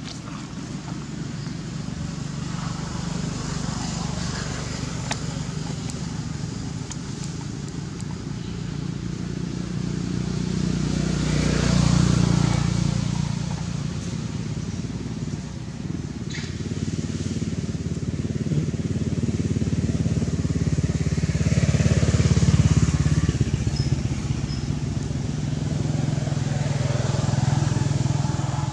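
Steady low engine drone of a motor vehicle, swelling louder about twelve seconds in and again around twenty-two seconds.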